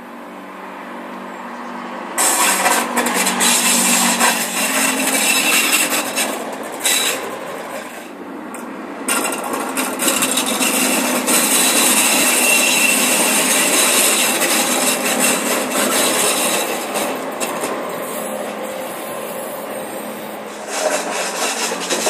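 WEG Regio-Shuttle diesel railcar passing close by. Its engine is heard coming near, then about two seconds in a loud, high wheel-on-rail squealing sets in and carries on through the pass, with short dips along the way. The uploader blames the squeal on poorly maintained track.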